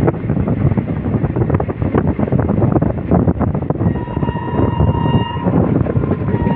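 Passenger train running at speed, heard from an open coach doorway: a steady rumble with rattling wheel and coach clatter and rushing wind. About four seconds in, a train horn sounds one steady note for about a second and a half.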